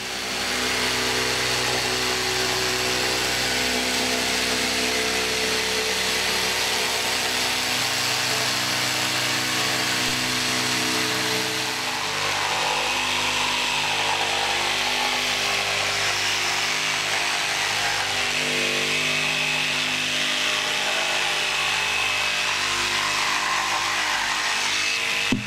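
Electric jigsaw cutting curves through a board, its motor and reciprocating blade running steadily, with a shift in pitch about twelve seconds in.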